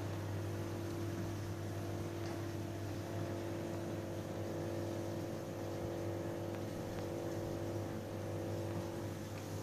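Steady hum of reef aquarium pumps and powerheads: a low drone with a few higher steady tones over a faint hiss.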